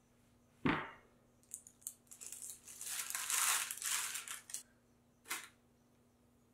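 A baking tray set down on a table with one solid thud, then baking parchment crinkling and rustling for a few seconds as the sheet of butter rolls is slid off the tray, with one shorter rustle near the end as it lands on a wire cooling rack.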